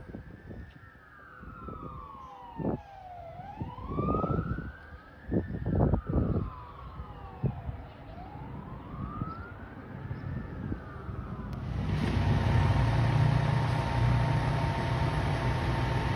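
Fire engine siren in a slow wail, rising and falling about every four seconds as the truck pulls away, with several low thumps in the middle. About twelve seconds in it gives way to a loud, steady engine rumble and hiss from a fire engine standing in its station bay.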